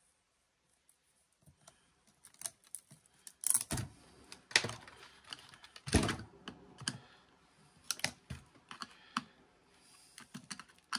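Irregular plastic clicks and clacks of hand tools working on a laptop's plastic case and parts during disassembly. They start a second or two in, with several sharper clacks in the middle.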